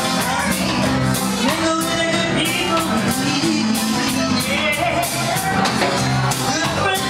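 Live band playing a reggae song, with drums, electric guitar and saxophone and a woman singing over a steady drum beat.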